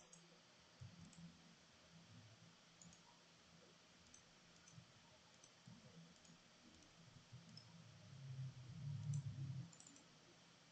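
Near silence: room tone with faint computer mouse clicks now and then, and a faint low rumble for about two seconds near the end.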